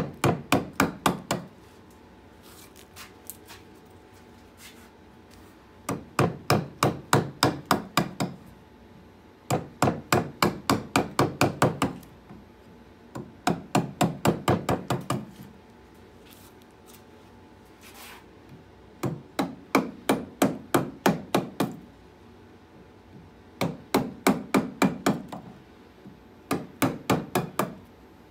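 A mallet tapping a carving gouge into a birch log to hollow out a bowl: quick runs of knocks, about six a second for a couple of seconds each, broken by short pauses, seven runs in all.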